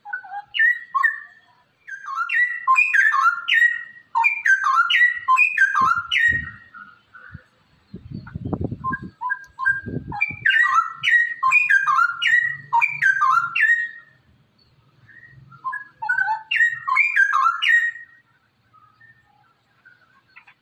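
Straw-headed bulbul (cucak rowo) singing loud phrases of quick, falling whistled notes, each phrase a few seconds long, with short pauses between them. A low rumble comes partway through.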